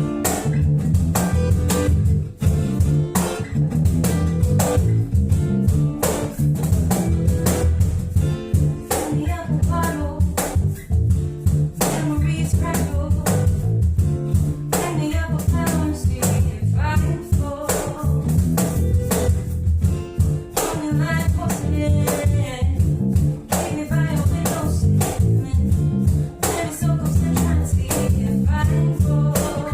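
Acoustic guitars strummed in a steady rhythm, with a voice singing phrases over them from about nine seconds in.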